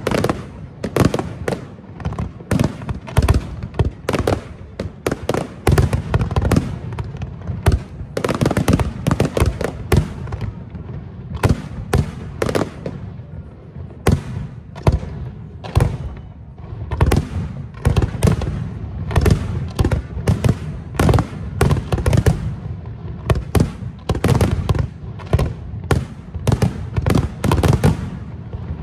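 Aerial fireworks display: shells bursting in rapid succession, many sharp bangs throughout, over a low rumble that carries on between them.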